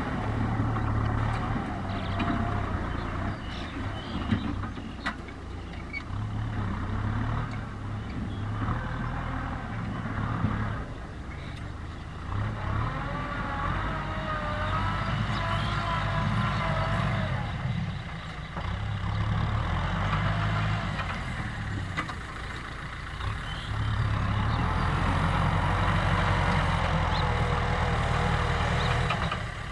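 Diesel tractor engine running under changing load, its low rumble swelling and easing again and again, with a whine above it that glides up and down in pitch. The engine grows louder for the last few seconds.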